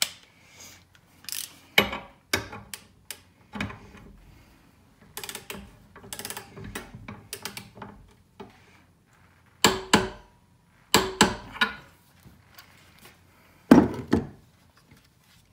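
A hand torque wrench ratcheting a large nut tight on a bolt held in a steel vise, torquing it to 120 foot-pounds. It makes scattered metal clicks and clacks, with a few sharper knocks in the second half; the loudest comes near the end.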